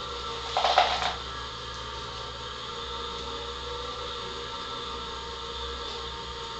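Small electric screw-type oil press running steadily while it crushes dried acorns, a continuous motor and gear hum with several steady whining tones. A brief clatter comes about half a second to a second in.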